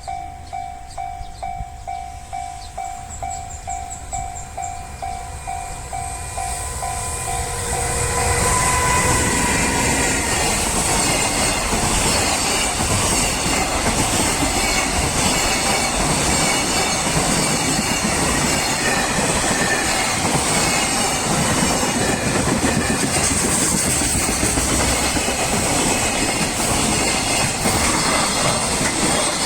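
Japanese level-crossing warning bell dinging about twice a second. From about eight seconds in it is drowned by a JR Freight train, hauled by an EF210 electric locomotive, passing through the crossing, loud and steady to the end.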